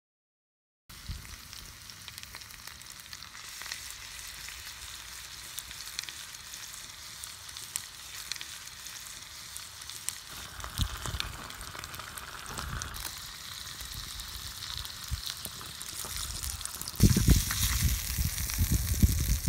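Fish paste and eggplant frying in a tiny steel pan over a small wood fire: a steady high sizzle with scattered crackles. Loud low rumbling noise comes in near the end.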